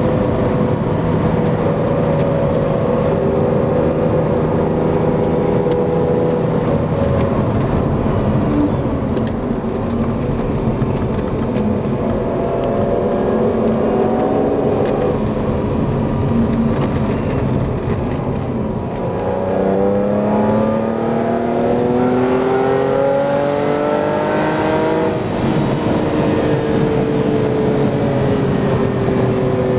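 Ferrari Testarossa's flat-12 engine heard from inside the cabin while driving hard. The engine note holds steady, dips briefly about two-thirds of the way in, then climbs sharply under acceleration before easing off near the end.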